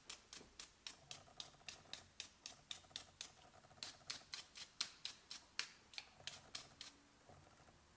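A rapid series of light, sharp clicks, about four a second, that stops about seven seconds in.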